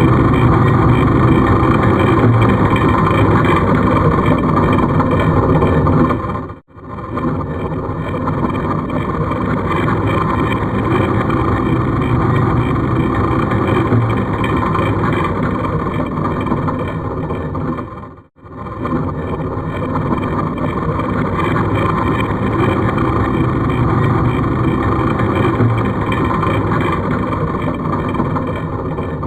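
Horror sound effect of a creepy mechanism: heavy stone grinding and scraping, like an ancient rock door sliding open or shut. It is a loud, steady, rumbling grind that breaks off for a moment twice, about twelve seconds apart, and starts again.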